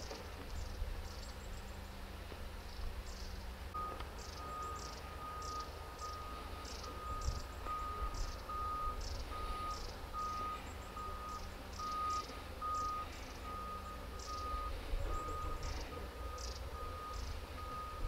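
Backup alarm of heavy construction equipment beeping steadily at one pitch, starting about four seconds in, over a low engine rumble.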